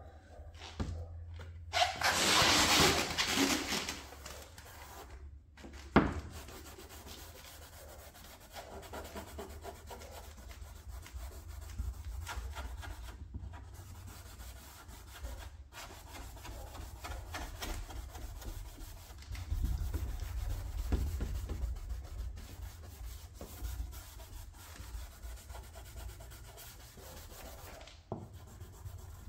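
Hand-sanding a key scratch in car paint with 800-grit sandpaper: repeated rubbing strokes, the paper catching and dragging on the raised, uneven edges of the scratch. A louder stretch of sanding comes about two seconds in, and a sharp knock about six seconds in.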